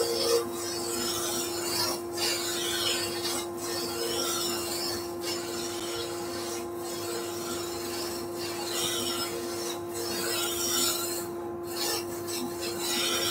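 A turning tool cuts a bone-dry spalted beech blank spinning on a wood lathe, roughing it to a cylinder. The cutting hiss runs in repeated passes, each broken by a brief pause about every second and a half, over a steady machinery hum.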